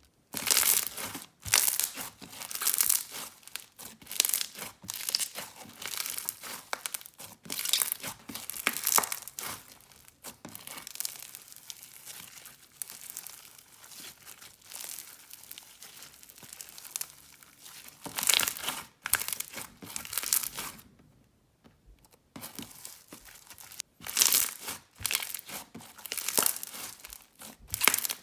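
Packed foam slime being squeezed and stretched, its foam beads giving crunchy, crackling pops in irregular bursts, with a short pause about three quarters of the way through.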